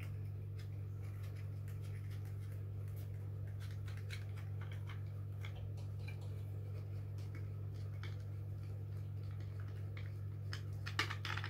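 Light plastic clicks and taps of an action camera's waterproof housing being handled and opened by hand, scattered through, with a quick run of louder clicks near the end. A steady low hum runs underneath.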